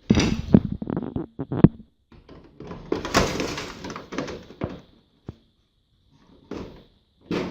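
DVD writer being slid into a computer case's front drive bay: a quick string of knocks and clunks, then a longer scraping rub, and a single sharp click about five seconds in.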